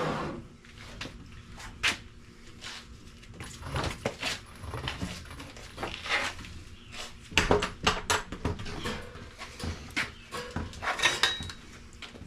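Wrench work on the bolts of a steel stand: irregular metal clicks and clanks, some sharper and louder than others.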